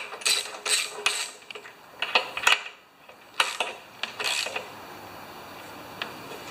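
Spark plug wrench being worked on a small engine's new spark plug: a run of short metallic clicks and brief rasping strokes, which stop about four and a half seconds in.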